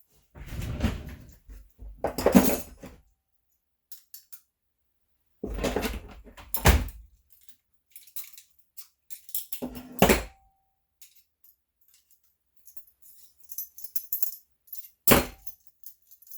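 Metal hardware jangling and clunking as a tool belt and its drill hook fittings are handled, in four separate bursts.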